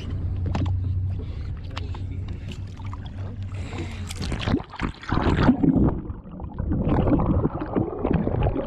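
Seawater sloshing and splashing against a camera held at the surface beside a boat hull, over a low steady hum. About five seconds in the camera goes under and the sound turns to loud churning and bubbling.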